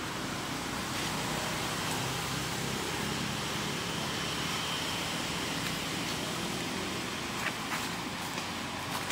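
Steady outdoor background noise with a low, even hum underneath, and a few short clicks near the end.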